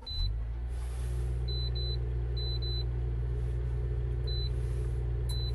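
Portable induction (IH) cooktop switched on under a stainless pot: a steady low electrical hum and buzz that starts about a second before anything else, with several short high beeps as its buttons are pressed.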